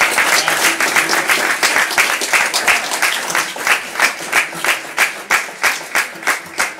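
Audience applause with many people clapping at once, which settles about halfway through into steady rhythmic clapping in unison, about three claps a second.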